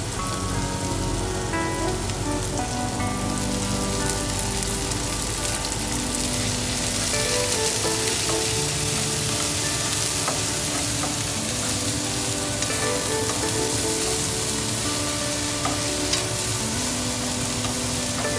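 Sliced bitter melon and shallots sizzling in hot oil in a frying pan as they are stirred with wooden chopsticks; the sizzle grows a little louder about seven seconds in.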